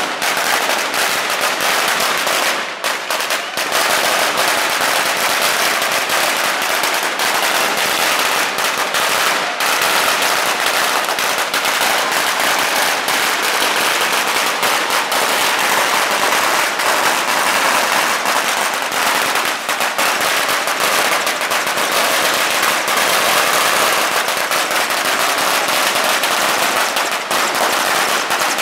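Firecrackers going off in a dense, rapid, unbroken run of cracks and bangs, with a brief let-up about three seconds in.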